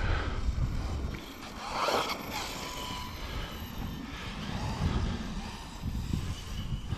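Stretched Typhon RC car's 1650 kV brushless motor whining as the car runs across grass, rising and falling in pitch about two seconds in. Wind buffets the microphone with a heavy rumble through the first second.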